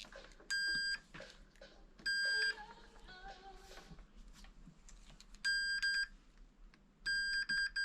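Digital multimeter in continuity mode beeping with a steady high tone as its probes close the circuit across the repaired heated-grip wiring, four beeps with the last one longer and stuttering. The beep shows the mended connection conducts.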